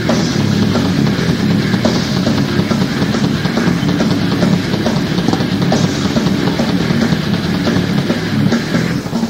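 Thrash metal band playing live: distorted guitars and bass over a drum kit, with a momentary break just before the end.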